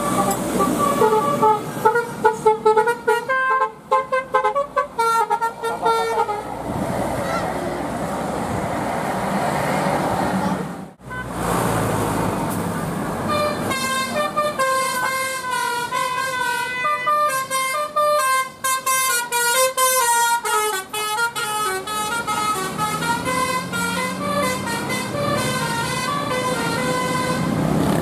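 Bus telolet horns, a set of multi-tone air horns played from a DAV telolet module, sounding a fast tune of short stepped notes. The tune is heard in the first few seconds and again through most of the second half. Between the two, bus engine and traffic noise fill the gap, with an abrupt cut about 11 seconds in.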